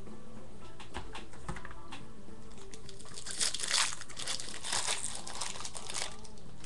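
Plastic trading-card pack wrapper being torn open and crinkled, a run of crackling from about halfway in.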